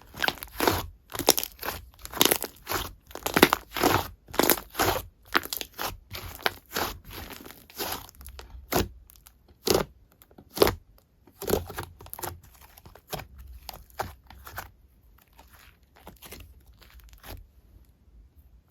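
Handmade slime being squeezed, stretched and pressed by hands, giving a quick run of crisp pops and crunchy crackles, about two a second, that grow softer and sparser near the end.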